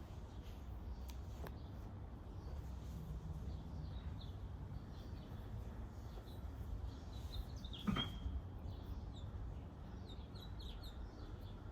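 Small birds chirping now and then over a steady low rumble of breeze on the microphone, with one brief sharp sound about eight seconds in.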